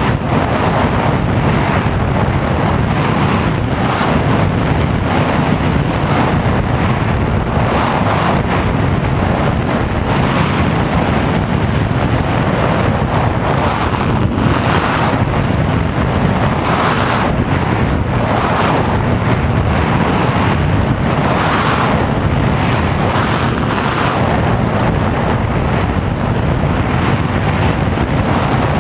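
Airflow rushing over the onboard camera microphone of a Sky Surfer radio-controlled glider gliding with its motor off: a loud, steady rush that swells in gusts every second or two.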